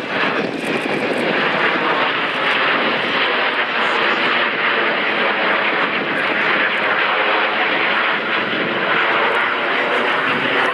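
Jet noise from a formation of BAE Hawk T1 jet trainers with Rolls-Royce Turbomeca Adour turbofans flying an aerobatic display: a loud, steady rush with no clear tone.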